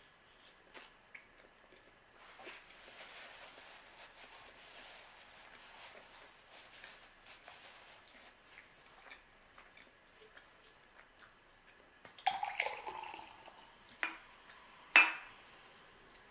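Faint rustling of a paper napkin, then about twelve seconds in a canned soft drink (Sprite) is poured into a glass mug for a second or so. Two sharp knocks follow as the can and glass are set down on the table, the second the loudest.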